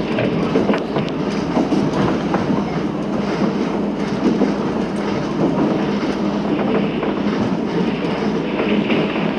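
JR Kyushu KiHa 200 series diesel railcar running, heard from inside the car: a steady rumble of wheels on rail with a low hum and scattered clicks of the wheels over rail joints.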